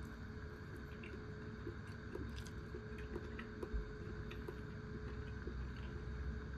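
Plastic takeaway food trays being handled and moved on a table: scattered light clicks and taps, with one soft thump near the middle, over a low steady hum.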